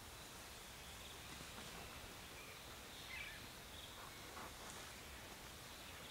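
Faint forest ambience: a steady low hiss with a few faint, brief chirps from small birds or insects.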